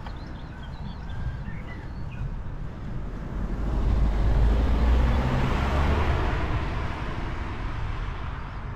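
A car passing by: engine and tyre noise swell to a peak about five seconds in, then fade.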